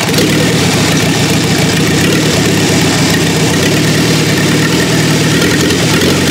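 Petrol engine converted to run on diesel fuel, with raised compression and a diesel injection pump, turning over on the starter and firing steadily while a heat gun warms its intake. It only keeps running with the heat gun's help.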